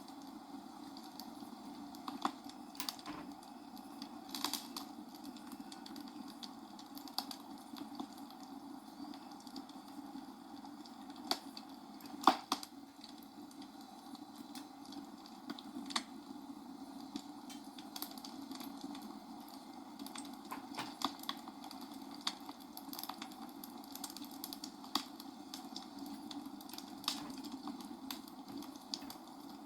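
Small plastic building bricks being handled and snapped together: irregular light clicks and taps, one sharper click about twelve seconds in, over a steady low hiss.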